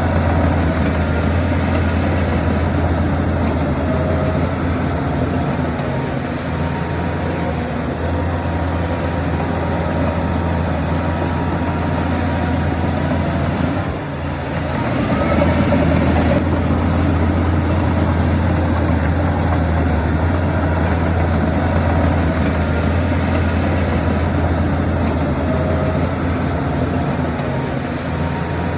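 Heavy earthmoving machinery's diesel engine running steadily with a deep drone. About halfway through it dips briefly, then picks up and runs louder again, as under load.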